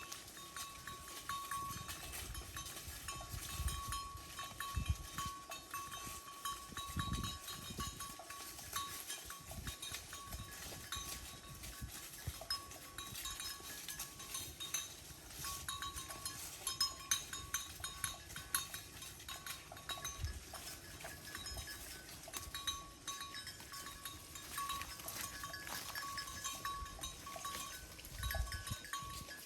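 Bells on grazing cows clanking irregularly, with a steady thin tone that breaks off now and then and occasional low thumps underneath.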